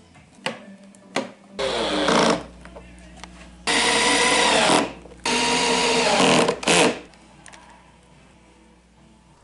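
Cordless drill/driver driving screws into a wooden subwoofer box, its motor whirring in four short runs, the last one brief.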